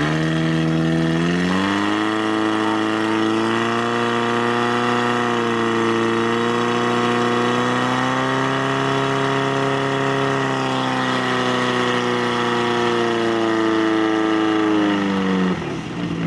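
Portable fire pump's engine running hard. Its pitch rises about a second and a half in, holds high with slight wavering, and falls away near the end.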